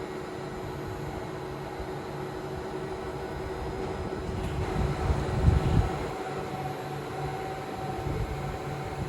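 Tram's electrical equipment running with a steady, multi-toned hum over a mechanical rumble, with a brief louder low rumble about five seconds in.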